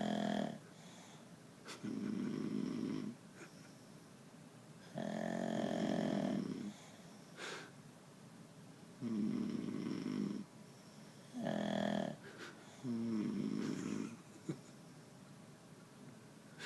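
Two sleepers snoring, about six snores in a row, each a second or two long, with short quiet gaps between breaths.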